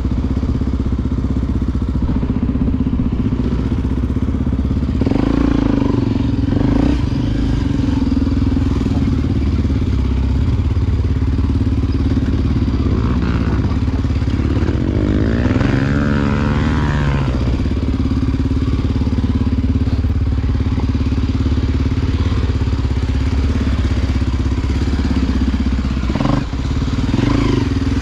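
Honda XR Tornado dirt bike's single-cylinder four-stroke engine running steadily while riding, with the engine note swelling up and back down briefly near the middle.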